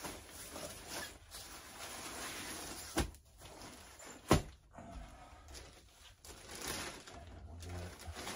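Canopy wall fabric and its plastic packaging being handled, rustling and crinkling. Two sharp knocks come about three and four seconds in, the second the loudest.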